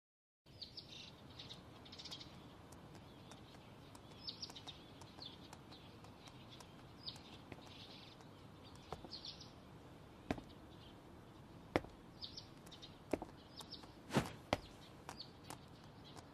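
Small birds chirping in short high calls over faint steady ambience. From about ten seconds in, sharp knocks or taps come more and more often.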